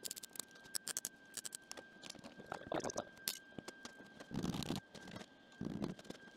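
Short clusters of crackling clicks from tack welding a thin sheet-metal patch, with rustling and clinks from gloved hands handling the locking-pliers clamp; the loudest rustle comes a little past the middle.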